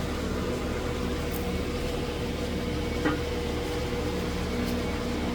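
A steady machine hum with a constant pitch over a noisy hiss, with one small click about three seconds in.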